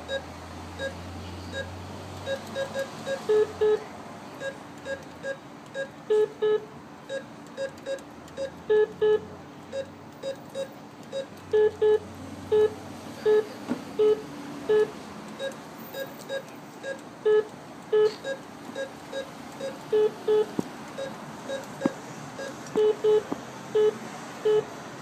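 ATM keypad beeping as its keys are pressed again and again: short beeps all at the same pitch, irregularly spaced at about two a second, some single and some in quick pairs, over a low background hum.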